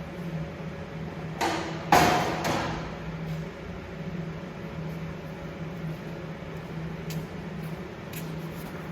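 A steel workpiece being handled: a light knock, then a loud metal clang about two seconds in that rings briefly before fading, over a steady low hum. A few faint ticks follow near the end.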